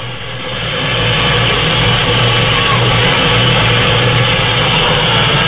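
Replica John Molson steam locomotive venting steam: a steady hiss that builds up over the first second and then holds, over a low uneven rumble.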